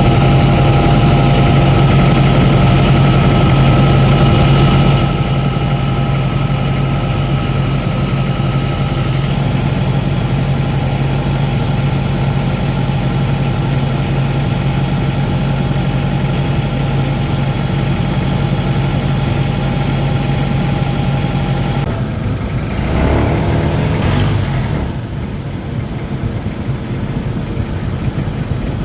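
Tour boat's engine running steadily with a droning hum, then easing off and changing note about three-quarters of the way through, running quieter near the end as the boat slows.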